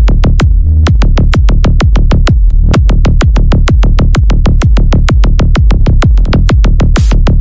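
Electronic dance music with a fast, steady drum-machine beat and heavy bass.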